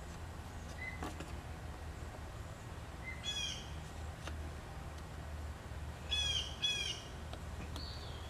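A bird calling with short, sharp chirps: one about three seconds in and two close together a little past six seconds, then a thin whistled note near the end, over a steady low background hum.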